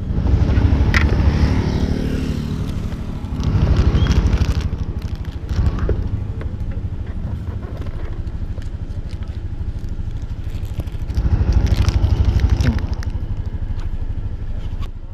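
Motor scooter engine running at idle, a steady low pulsing rumble that swells a few times, with rustling, scraping and clicks from handling close to the microphone.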